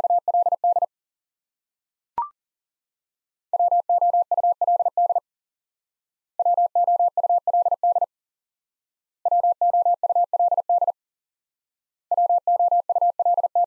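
Morse code at 40 words per minute, a single steady mid-pitched tone keyed in quick dits and dahs spelling WOULD. One sending ends just after the start, then the word is sent four more times with about a second of silence between sendings. A short click about two seconds in.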